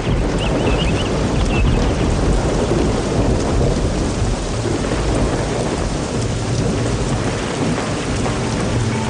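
Heavy rain pouring down with rolling thunder rumbling through it, a steady downpour in a storm. A few high chirps sound in the first second or so.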